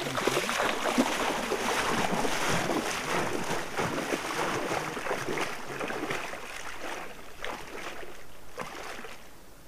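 Lake water splashing and sloshing as a person wades in. The splashing dies down over the last few seconds.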